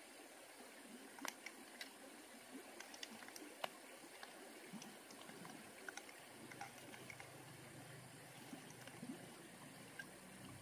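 Faint running stream water with a scattering of small, sharp ticks, and a low steady hum that comes in about two-thirds of the way through.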